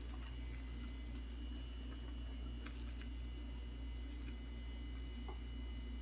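Ramen noodles and broth being stirred in a metal pot with a silicone spatula: faint, soft, wet stirring with a few light taps against the pot, over a steady low hum.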